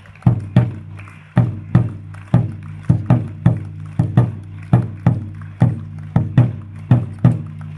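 A drum beaten in a steady rhythm, about two to three strikes a second, each hit leaving a low ringing boom.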